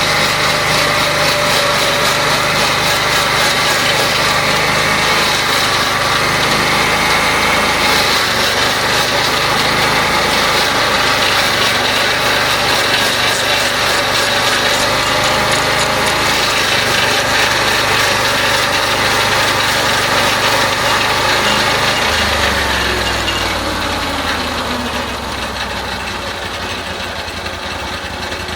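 Band sawmill's small engine running steadily at high speed, then slowing about three-quarters of the way through, its pitch falling and the sound easing off.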